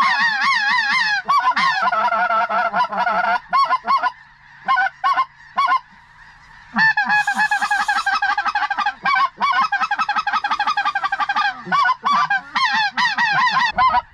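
Loud, rapid goose calling: strings of wavering honks and yodels, one after another. The calling thins to a few short notes for a couple of seconds around the middle, then picks up again.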